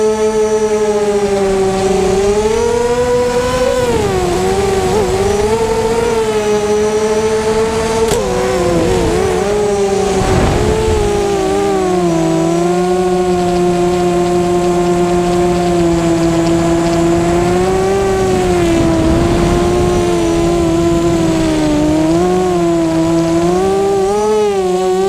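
Blackout 330 FPV quadcopter's electric motors and propellers whining steadily, the pitch gliding up and down as the throttle changes, with wind rushing over the onboard microphone.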